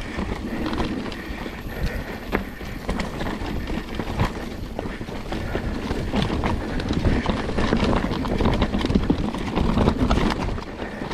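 Mountain bike riding down a slick, muddy dirt trail: tyres on the wet ground under a steady low rumble, with frequent sharp knocks and rattles from the bike over the bumps.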